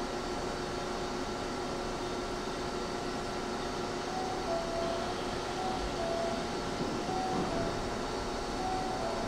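Steady hum of a Hankyu 1000 series electric train standing at the platform, its air-conditioning and onboard equipment running. A faint two-note chime, high then low, repeats about four times from about four seconds in.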